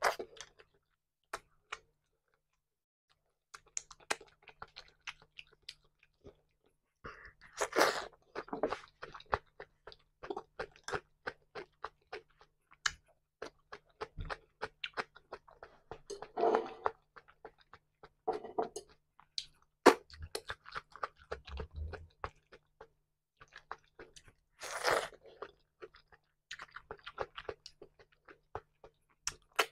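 Close-miked chewing and crunching of raw salad vegetables, with wet mouth clicks, coming in uneven bites with short pauses between them.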